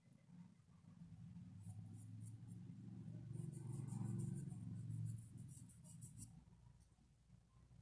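Faint scratching of a paintbrush's bristles dragged over fabric in quick, repeated short strokes, from about two seconds in until about six seconds in. Under it is a low rumble that swells in the middle and dies away near the end.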